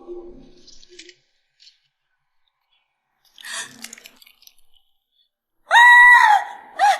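A loud, high-pitched cry held for about a second and falling at its end, followed by a short second cry; before it, a brief scuffling noise.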